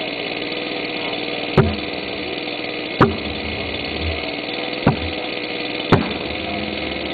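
Homebuilt jet engine idling with a steady rushing roar, broken four times by short sharp cracks.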